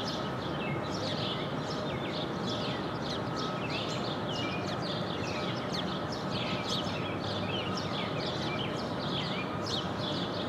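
Several small songbirds chirping over one another: many quick, high, downward-sweeping notes through the whole stretch, over steady outdoor background noise.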